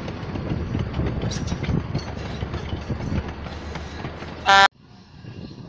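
Sugar cane train's wagons (cane bins) rolling past, a steady rumble with rapid clanking and rattling from the wheels and couplings. About four and a half seconds in comes one short, loud horn toot, which is cut off abruptly.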